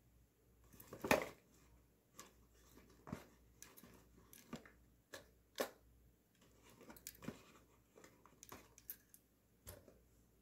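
Small paper and plastic items handled by hand: irregular faint clicks, taps and rustles, the loudest about a second in.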